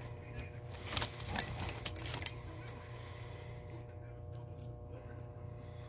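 Small metal tool clicking and tapping against the brass works of a 1938 Western Electric 5H rotary dial as a small screw is taken out: a handful of light clicks in the first two to three seconds, then only a faint steady hum.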